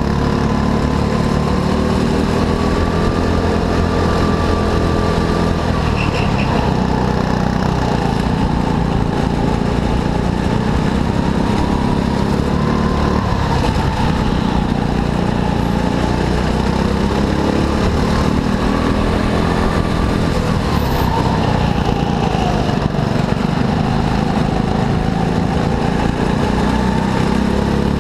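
Racing kart engine running steadily under load, its pitch rising and falling as it speeds up and slows.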